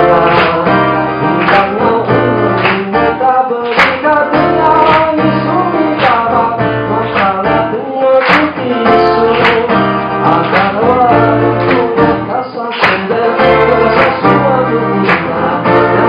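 A man singing a song live into a microphone over a strummed acoustic guitar, with a sharp accent on the beat about once a second.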